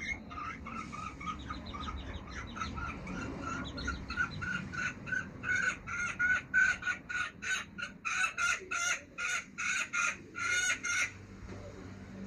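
A hen clucking in a long run of short calls that come faster and louder, then stop shortly before the end.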